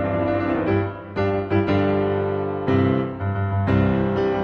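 Background piano music: a slow run of held chords, changing every half second or so.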